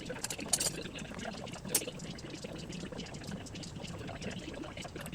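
Oil draining from the mower's transmission, a steady trickling pour into a catch pan, with a couple of light clicks.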